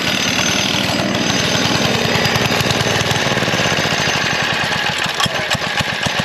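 Vintage go-kart's 3 hp Briggs & Stratton single-cylinder engine running with no load, its chain off. Its speed drops from a fast, even run to a slow, uneven idle with separate firing pulses. The owner thinks the engine is definitely too hot.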